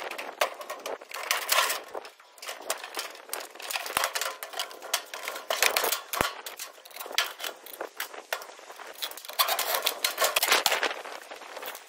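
Irregular clicking and metallic clatter as a washing machine's sheet-metal cabinet is taken apart with a cordless drill-driver.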